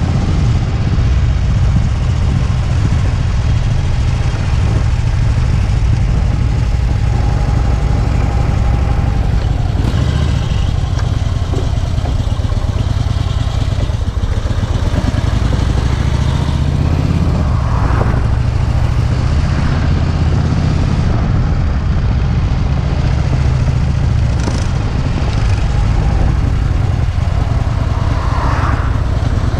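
Harley-Davidson air-cooled V-twin engine running under way, its low note shifting up and down a few times with the throttle and gears.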